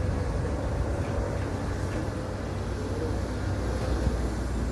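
Caterpillar 320D L excavator's diesel engine running at a steady, low drone.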